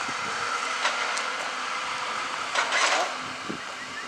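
Steady background noise with a faint mechanical hum, and a few soft scuffs about a second in and again near three seconds.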